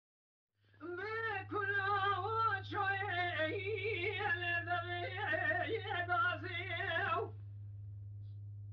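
A single voice singing an unaccompanied, wavering, ornamented melody, which stops about seven seconds in. A steady low hum runs underneath.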